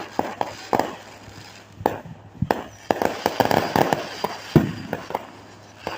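Consumer fireworks going off in quick succession, sharp bangs and crackling. The crackling is densest about three seconds in, and the loudest single bang comes about four and a half seconds in.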